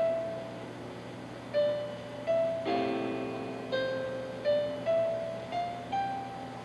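Background piano music: an unhurried melody of single struck notes, with a fuller chord under it a little under three seconds in.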